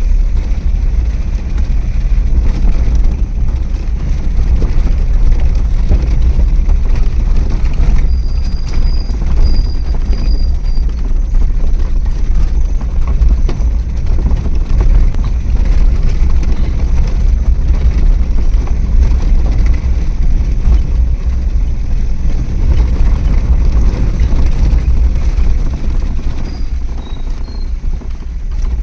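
Vehicle driving along a road with a steady, loud low rumble of engine and road noise. A few faint high-pitched chirps come through about a third of the way in and again near the end.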